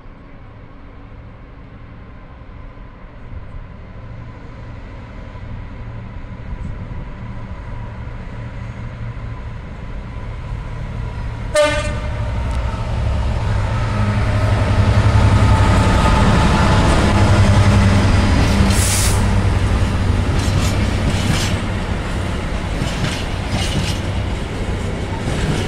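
Class 66 diesel freight locomotive approaching and passing, its two-stroke V12 engine drone growing steadily louder, with one short horn toot about eleven seconds in. After the locomotive goes by, the wagons follow with a run of clicks from wheels over the rail joints.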